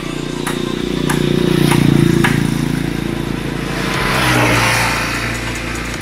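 Motorstar Easyride 150N scooter's engine running with its muffler removed, the exhaust nuts having shaken off and a bolt having broken. The engine rises and falls in speed twice, with the first swell about a second and a half in and the second near four and a half seconds.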